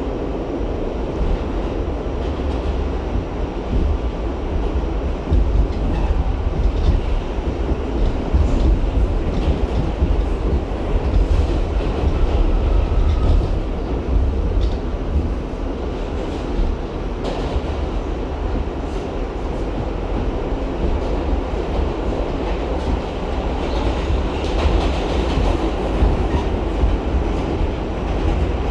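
R68 subway train running along the track: a steady low rumble with wheels clicking over rail joints at irregular intervals.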